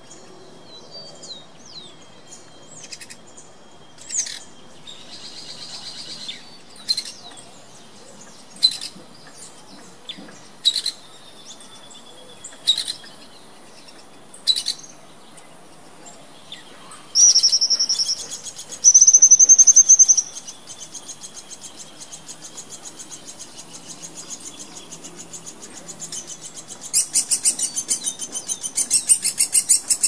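Woodpeckers calling at a nest hole: sharp single high chirps about every two seconds, then two loud, rapid, high trills about 17 seconds in. Near the end comes a fast, harsh, pulsing chatter as the adult arrives at the hole: a nestling begging to be fed.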